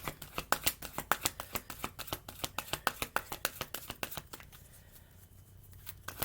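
Tarot deck being shuffled by hand: a rapid run of light card clicks and flicks that eases off about four seconds in and starts again at the end.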